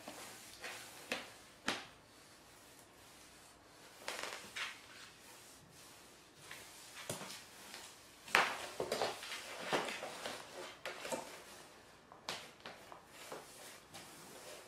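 Intermittent scrapes, rubs and soft knocks of a cardboard box on a wooden floor as a flat floor mop pushes against it and the cat shifts inside. The sounds come in short scattered bursts, busiest and loudest from about eight to eleven seconds in.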